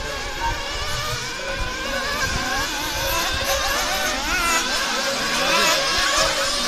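Several 1/8-scale nitro RC off-road cars racing, their small two-stroke glow engines whining and revving up and down over one another, growing louder towards the end.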